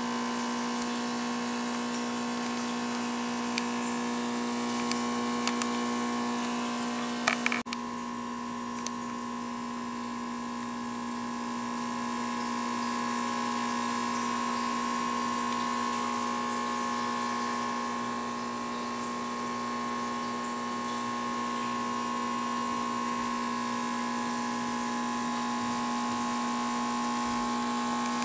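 Aquarium pump or filter motor humming steadily, a low hum with a higher whine over it. A few light clicks come about four to seven seconds in.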